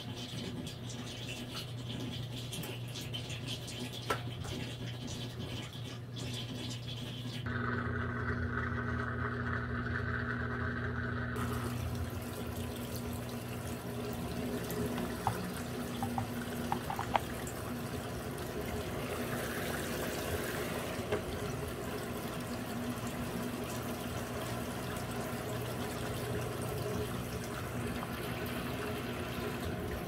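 Consul Facilite top-loading washing machine running through a wash, freshly overhauled: soapy water sloshing in the tub over a steady electrical hum, with a few small clicks in the middle.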